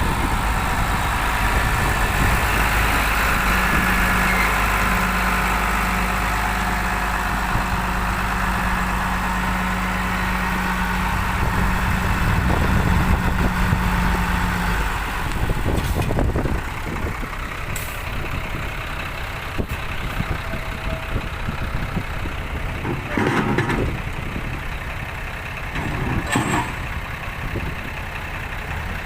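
The diesel engine of a Nissan CWA260X truck running steadily with a deep drone. A steady hum sits over it for the first half, and a few sharp clanks come in the second half.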